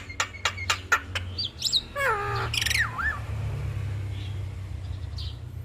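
Javan myna song: a fast run of sharp clicking notes, then whistles, a falling harsh call and a wavering whistle. For the last couple of seconds the bird is mostly silent over a low steady hum.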